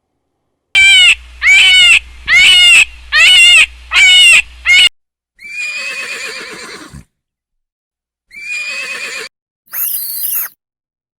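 Farm animal calls: about five short, wavering cries in quick succession, followed by three longer separate calls, the last one high and harsh.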